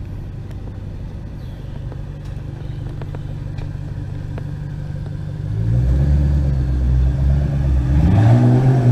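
2010 Ford Mustang Shelby GT500's V8 running at a low, steady idle as the car pulls out. About five seconds in it grows clearly louder on light throttle as the car rolls toward the listener, with a brief rise in revs near the end.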